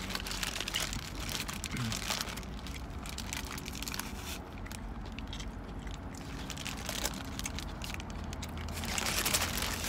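Paper burger wrapper crinkling and rustling as it is handled, in irregular bursts that are busiest near the end.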